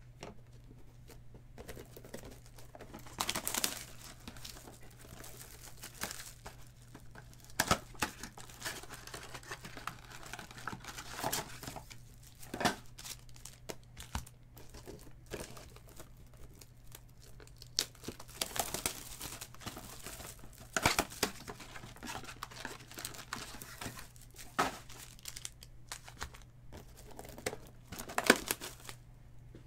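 Cellophane box wrap and foil trading-card packs crinkling and tearing as hobby boxes of 2019 Donruss Optic are opened and the packs pulled out and stacked, in irregular bursts with sharp clicks.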